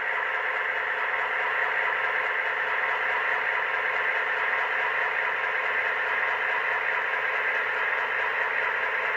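The ESU LokSound decoder in an Atlas HO scale FM H16-44 model locomotive plays a steady diesel prime-mover sound through its small onboard speaker, with little bass, as the model runs slowly in reverse at speed step 4.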